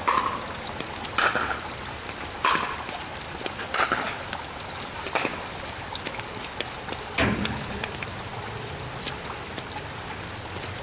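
A pickleball rally: paddles striking the plastic ball, about six sharp pops a little over a second apart that stop a little past seven seconds in, over steady rain noise.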